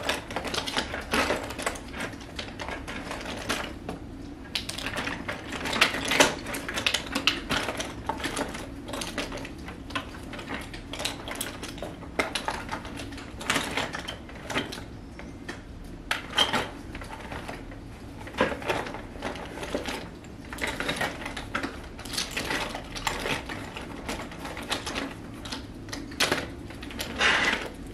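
Rummaging through makeup items: small objects clicking and clattering against each other in quick, irregular bursts while searching.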